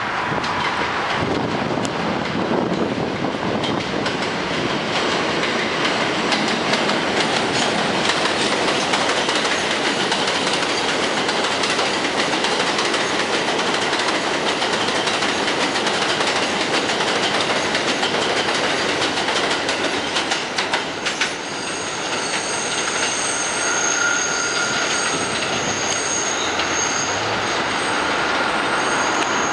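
New York City Subway R142A train passing at speed on elevated track: a steady rumble with the rapid clatter of wheels over rail joints. About two-thirds of the way through, high steady squealing tones come in and break off and on, the wheels squealing as the train leaves on the trestle.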